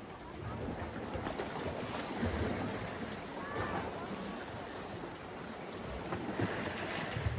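Seaside wind buffeting the microphone over the wash of small waves, with a faint short call about three and a half seconds in.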